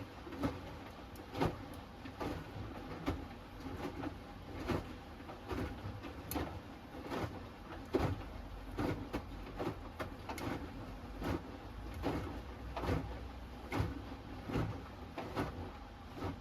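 Hoover Axi 10 kg front-loading washing machine tumbling a wash load: laundry and water slosh and drop in the turning drum with a soft swish about every 0.8 seconds over the machine's steady hum.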